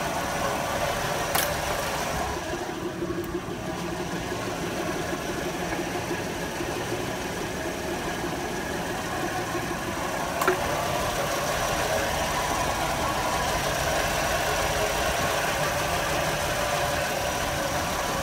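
1966 Ford Mustang's inline-six engine idling steadily, with two sharp clicks, about a second and a half in and about ten seconds in.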